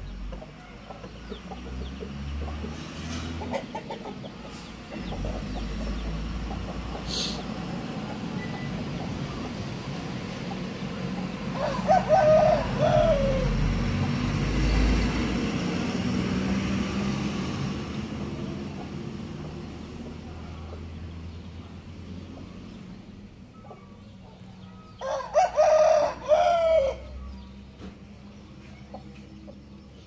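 Parrot-beak Aseel rooster crowing twice, each crow lasting about two seconds, the second coming about thirteen seconds after the first, over a low background rumble.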